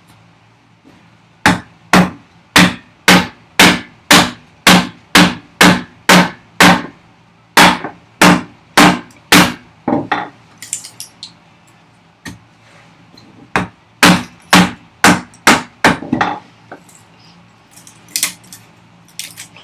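A large timber framing chisel being struck in a steady run of loud blows, about two a second, chopping waste wood out of a housing dado. The blows pause for a few seconds, resume for a shorter run, then give way to a few lighter knocks.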